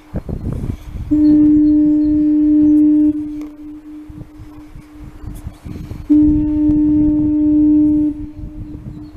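Seal Island fog signal sounding two steady, low-pitched blasts about two seconds long each, one about a second in and one about six seconds in. A low rumbling noise lies underneath.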